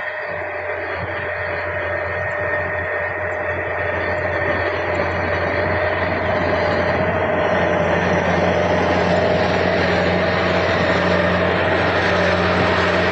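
Kubota DC104 combine harvester running steadily: a low engine hum with a steady whine above it, growing louder over the first several seconds.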